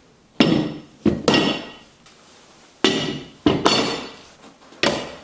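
Metal struck hard five times, hammer-like, each blow ringing out and dying away. The blows come as two quick pairs and then a single one near the end.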